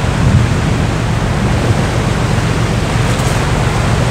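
Steady rushing noise of sea water washing against shore rocks, with a low rumble of wind on the microphone.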